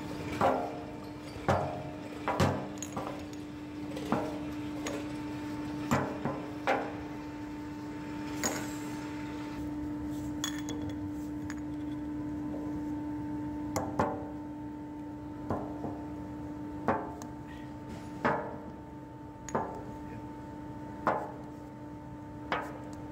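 Glass jars with black lids knocking and clinking as they are handled and set down on a wooden table, irregularly every second or two. Under them runs the steady hum of a running steam capping machine.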